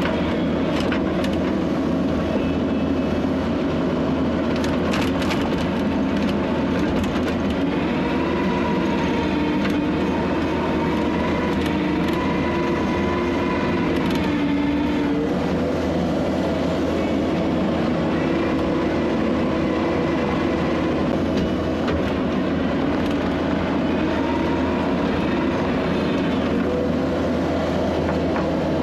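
Skid steer engine running steadily under load, with a hydraulic whine that rises and falls in pitch as the machine grades dirt.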